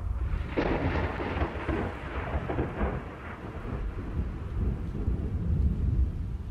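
Thunderstorm sound effect: a continuous low rumble of thunder over falling rain, with a louder peal about half a second in that dies away over the next couple of seconds.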